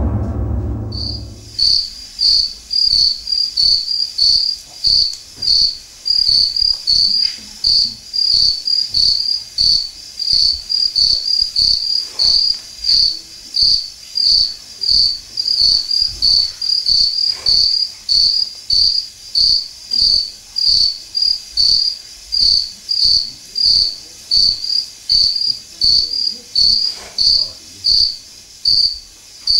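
Cricket chirping as a stage sound effect: a high, shrill chirp repeating evenly about three times every two seconds, starting about a second in as the music fades out.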